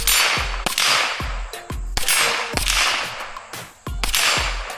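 Several gunshots in a timed shooting drill, each with a long echo, spaced a second or two apart. Background music with a steady beat runs underneath.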